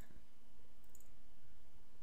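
Computer mouse clicks: a sharp click at the start and a lighter click about a second in, over a steady low hum.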